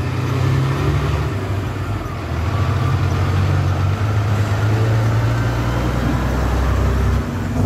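Diesel engine of a long-nose semi truck pulling a dump trailer, a steady low drone as it turns slowly and drives past close by, easing slightly near the end.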